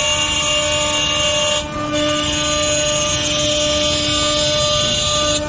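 Four-spindle CNC machining center running, its spindles whining steadily while the router bits cut solid wood. The high whine cuts out briefly about a second and a half in, then resumes.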